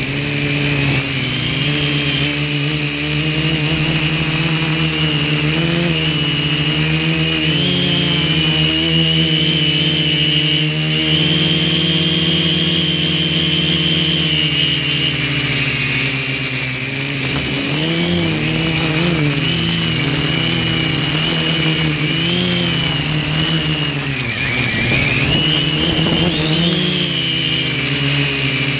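Quadcopter's four NTM Prop Drive 900KV brushless motors spinning 10x4.5 Gemfan props, heard from on board as a loud, buzzing whine. Its pitch wavers up and down with the throttle and dips briefly twice, about two-thirds of the way through and again a little later.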